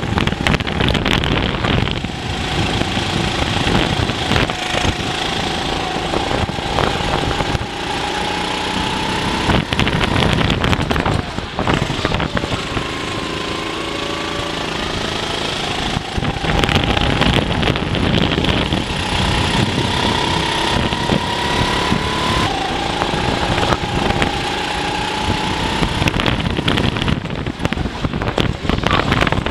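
Racing kart engine heard from on board at speed, its note climbing steadily in pitch for several seconds and then dropping sharply, over and over as the kart speeds up along straights and lifts off for corners.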